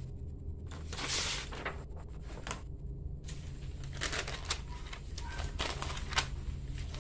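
Paper being handled: a sheet of notebook paper rustling and sliding over a drawing, in a longer rustle about a second in and several short crinkles later on. A steady low hum lies underneath.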